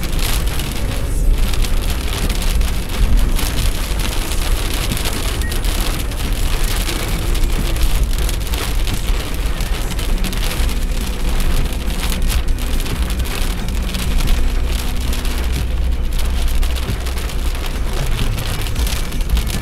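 Heavy rain pouring steadily, with a constant low rumble underneath.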